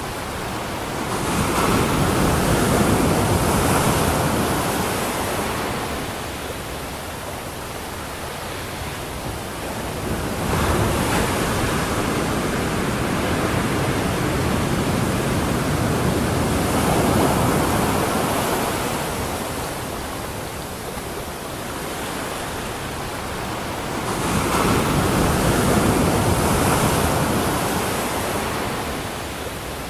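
Sea surf breaking on a beach: a steady rush of waves that swells and ebbs about four times as each wave comes in.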